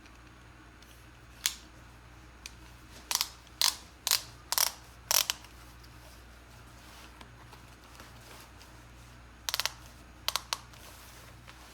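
Sharp metallic clicks from a ratchet belt buckle being handled: one click, then a run of about six, roughly two a second, and a quick cluster of clicks near the end.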